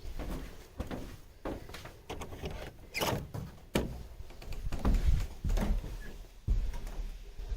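Wooden bird-hide door being opened and handled, with a series of irregular knocks, thuds and bumps as someone steps inside.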